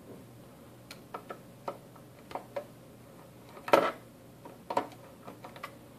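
Screwdriver working the screws out of an access point's metal case: a string of sharp metallic clicks and clinks, the loudest a little past halfway and another strong one about a second later.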